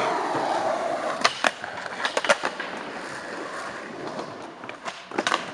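Skateboard wheels rolling on concrete, growing fainter as the rider moves away, with several sharp clacks of the board along the way.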